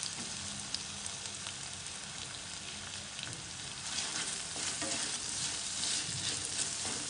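Chopped onions sizzling in hot oil and schezwan sauce in a wok. The sizzle grows louder about four seconds in as a spatula stirs them, with short scrapes against the pan.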